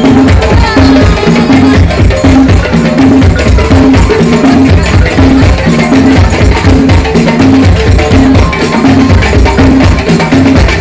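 Live West African drum ensemble music: djembe and dunun-style hand drums playing a fast, driving rhythm, with a short pitched note repeating about twice a second.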